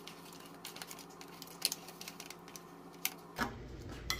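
Spatula scraping and clicking against a disposable aluminium foil baking pan as an enchilada is lifted out: a run of small irregular clicks and crinkles, with louder ones about 1.7 s and 3 s in.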